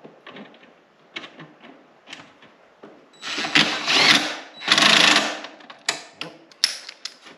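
Cordless impact driver hammering in two short bursts, about three seconds in and again a second later, driving a bolt into a plastic housing. A few light clicks of handling come before the bursts.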